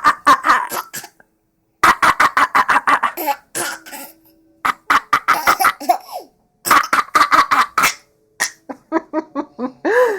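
Fits of rapid coughing, each a quick string of short hacks lasting about a second, repeated several times with brief pauses, and a short rising-and-falling squeak near the end.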